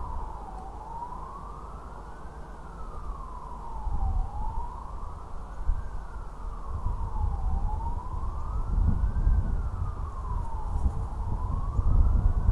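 Emergency vehicle siren wailing, its pitch rising and falling slowly, about one cycle every three and a half seconds. Under it is a low rumble that grows louder from about four seconds in.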